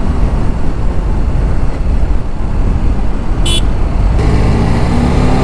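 Apache RR310 single-cylinder motorcycle engine running under way, with heavy wind rumble on the microphone. A short, high horn beep sounds about three and a half seconds in. About four seconds in, the engine's pitched note comes through clearly and holds steady.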